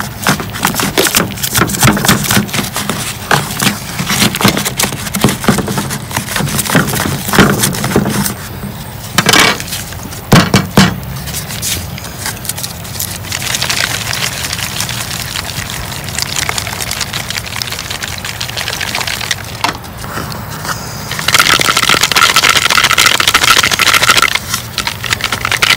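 Bent wire coat hanger scraping and rattling around inside a hollow dried gourd, knocking loose the dry pulp and seeds. Near the end comes a dense, loud rattle as the loose seeds and chaff are shaken out of the gourd.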